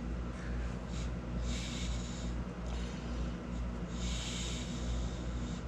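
A man breathing out audibly through his nose, two longer exhales about two and a half seconds apart, over a steady low electrical hum of room equipment.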